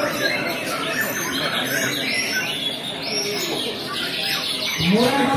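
Several caged songbirds singing at once, a tangle of quick chirps and whistled glides, over a murmur of people talking; a voice rises in near the end.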